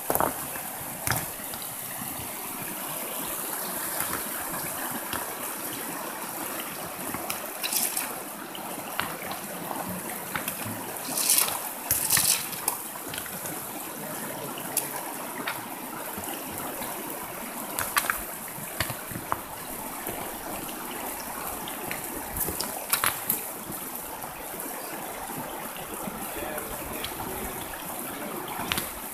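A shallow, rocky river runs steadily over stones, with a few short splashes and clacks of rocks as a gold-prospecting sluice box is set into the current, the loudest about twelve seconds in.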